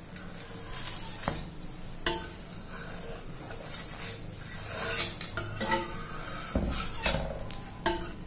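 Steel flat spatula scraping and tapping against an iron dosa tawa as it is worked under the edges of a cooking dosa to loosen it for flipping. The scrapes and clicks come irregularly, with a dull knock about six and a half seconds in, over a light sizzle of ghee on the hot pan.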